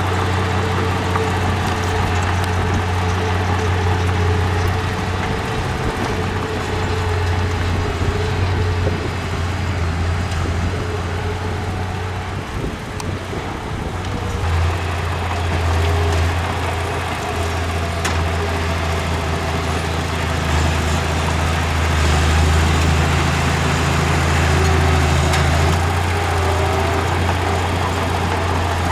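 Diesel engine of heavy earthmoving machinery running steadily under working load. It dips briefly a little before the middle, then runs heavier.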